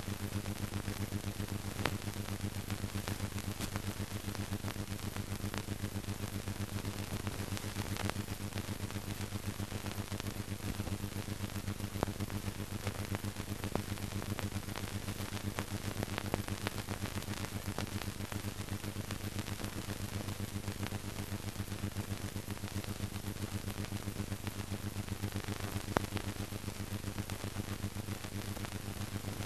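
Steady hiss and a low, even hum from an old film sound track, with a few scattered faint clicks and one sharper click near the end. No other sound stands out.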